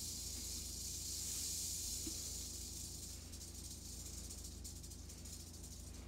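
Eastern diamondback rattlesnake buzzing its rattle, a warning signal: a steady high buzz that weakens about halfway through and breaks into a flicker.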